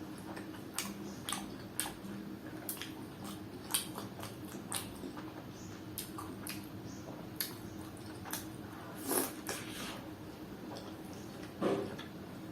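Close-miked mukbang chewing of momos: irregular wet mouth clicks and smacks, with two louder, fuller squishy bites, about 9 seconds in and near the end.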